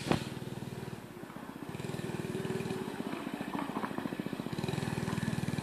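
Mini bike's small single-cylinder engine running with a fast, even firing beat, growing louder as the bike comes closer. A single sharp knock sounds right at the start.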